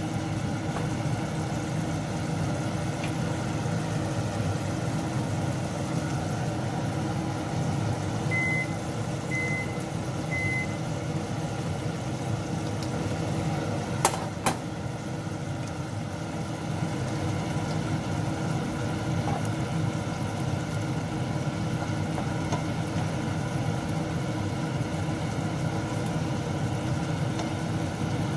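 A steady low hum over a pan of beef stew simmering. Three short electronic beeps come about eight to ten seconds in, and two sharp clicks come about halfway through.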